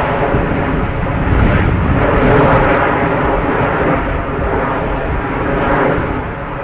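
Formation of F/A-18 Hornet jets flying overhead, their engines a loud, steady jet roar that swells to its loudest about two to three seconds in and eases off toward the end.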